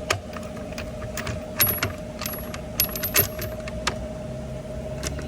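Steelman 1/2-inch drive metal sockets clinking against each other as they are handled: a string of sharp metallic clicks, several in quick clusters with a bright ring.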